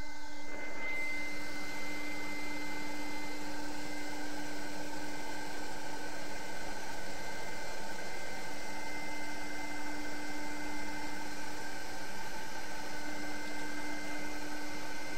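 BMW M43 1.9-litre four-cylinder engine idling steadily, heard from close to the engine bay: an even hum and hiss with a few steady held tones.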